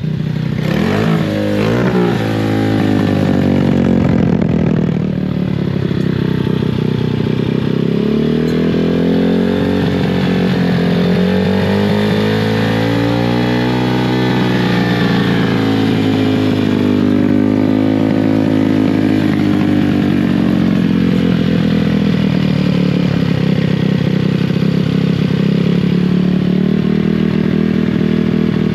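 Dirt bike engine running, its speed rising and falling several times before settling into a steadier run near the end. It is being run after a carburetor cleaning while the rider tries to get it running right.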